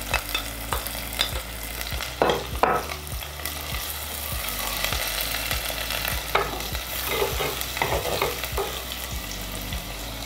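Sliced onion, garlic, ginger and curry leaves frying in hot coconut oil in a clay pot: a steady sizzle, with a few louder crackles about two seconds in and again past the middle.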